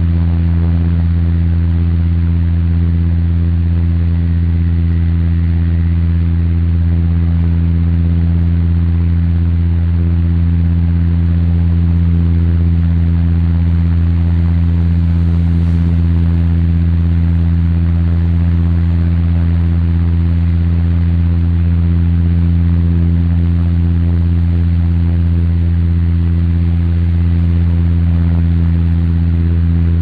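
Airliner cabin noise in cruise: a steady, low engine drone with a rushing hiss of air over it.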